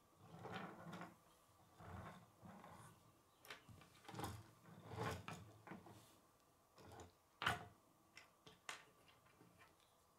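Faint clicks and rustling of plastic K'nex pieces being handled and snapped together, with one sharper click a little past the middle.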